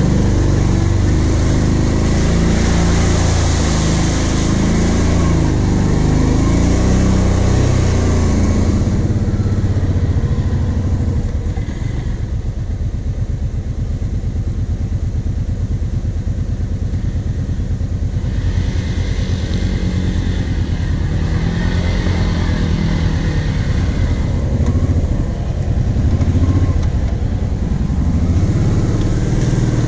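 Quad bike (ATV) engine running and revving under load as it drives through a muddy, water-filled trench, the engine note rising and falling with the throttle. Water and mud splash around the machine for stretches early on and again about two-thirds of the way through.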